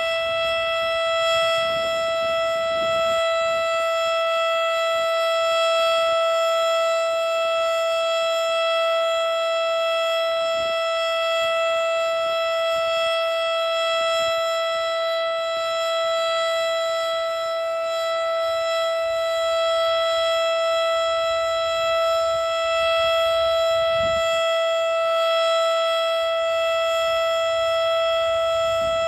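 Federal Signal STH-10A single-tone siren, a 10 hp, 12-port single-rotor outdoor warning siren, holding a steady high tone at full speed for its monthly test. The pitch stays level, and the loudness swells only slightly now and then.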